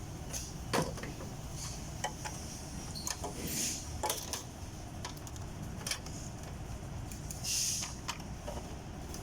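Factory-floor noise: a steady low rumble of machinery with scattered sharp clicks and knocks of handled metal parts, and two short hisses.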